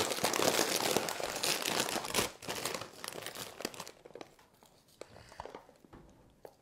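Crinkling of a potato chip bag as a hand rummages inside it and pulls chips out, busiest in the first two seconds, then a few fainter, scattered rustles.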